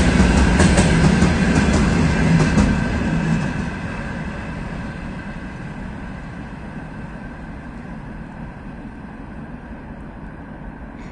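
Freight train's gondola wagons rolling past, wheels clicking over the rail joints, then the rumble fading steadily after about three seconds as the last wagon passes and the train moves away. A thin, steady high whine lingers under the fading rumble.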